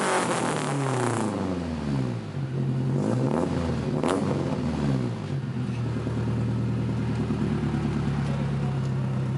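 Chevrolet Chevette DL engine being revved: its pitch climbs and falls back a couple of times, then settles into a steady idle about five seconds in.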